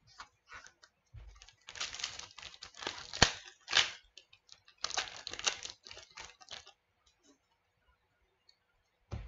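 A trading card pack wrapper torn open and crinkled, and the cards inside handled. It comes in two rustling stretches with small clicks, the sharpest tap about three seconds in.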